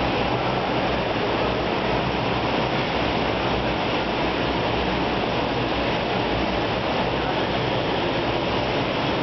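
Steady, unbroken engine noise from a twin-engine turboprop airliner running on the apron, with a low hum beneath the even rush.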